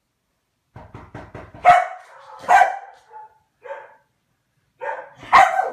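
A dog barking: three loud barks spread through the clip, with smaller barks between them. A quick run of soft taps comes just before the first bark, about a second in.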